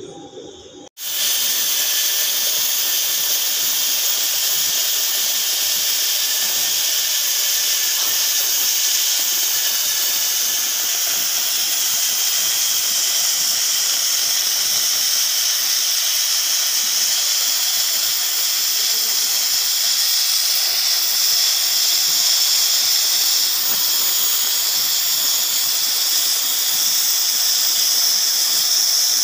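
Oxy-fuel cutting torch hissing steadily as its gas jet cuts through steel plate. The hiss starts abruptly about a second in.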